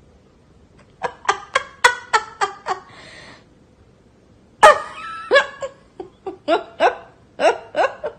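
A person laughing in quick repeated bursts: a short run of laughs about a second in, then a longer, louder run starting around the middle.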